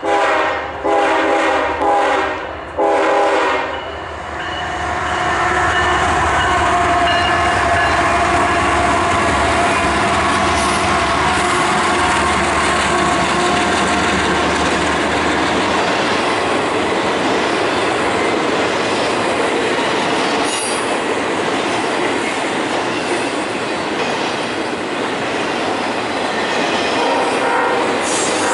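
Diesel freight locomotive's air horn sounding about four short blasts. The locomotives then pass, followed by double-stack intermodal cars rolling by with steady rail clatter and squealing wheels.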